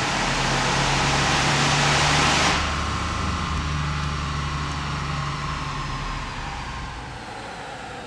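Supercharged Chevy 4.3 V6 pickup running at full throttle on a chassis dynamometer. About two and a half seconds in, the throttle closes and the engine, drivetrain and dyno roller wind down, getting steadily quieter with a whine falling in pitch.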